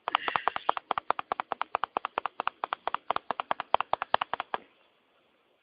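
Rapid, evenly spaced tapping clicks, about eight a second, which stop abruptly about four and a half seconds in.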